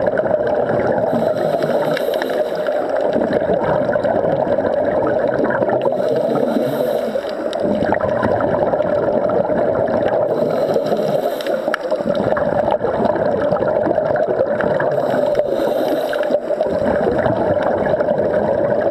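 Underwater sound of scuba divers breathing: bursts of exhaled regulator bubbles gurgling about every four to five seconds over a steady hum.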